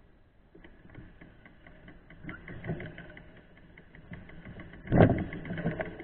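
Mountain bike rolling over a dirt singletrack: the rear freehub ticks rapidly and evenly while coasting, over low rattling and knocking from the tyres and frame on the rough trail. A loud thump about five seconds in, as the bike jolts over a bump.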